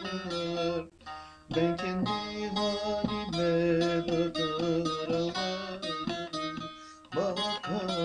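Bağlama (long-necked Turkish saz) played solo, a fast run of strummed and plucked melody notes between sung verses of a Turkish folk song. The playing breaks off briefly about a second in and again about a second before the end.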